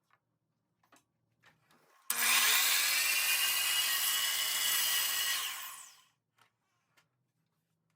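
Miter saw starting abruptly and cutting a taper into a wooden table leg held in a tapering jig, running loud for about three and a half seconds, then dying away. A few faint clicks come before it.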